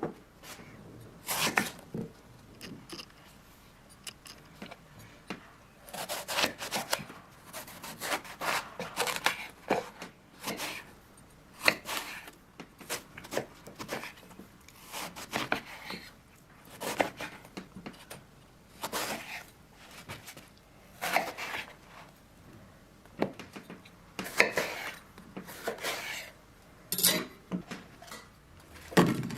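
Kitchen food preparation: irregular spells of rubbing and scraping strokes, each a second or two long, with short pauses between.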